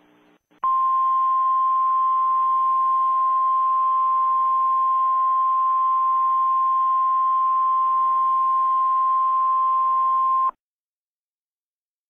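Emergency Alert System attention tone: a single steady tone just above 1 kHz over a faint hiss. It starts just under a second in, holds for about ten seconds and cuts off sharply.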